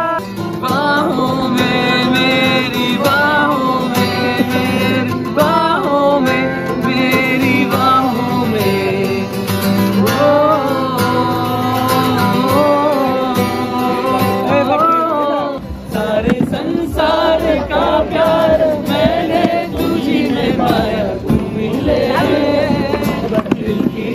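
A man singing live while strumming an acoustic guitar. About fifteen seconds in the sound changes abruptly into another passage with a heavier bass.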